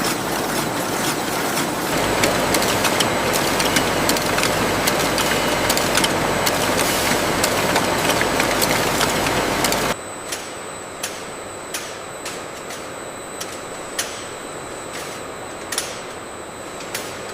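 Factory machinery running steadily with a dense mechanical din. About ten seconds in it cuts abruptly to quieter machine running with scattered sharp clicks and knocks.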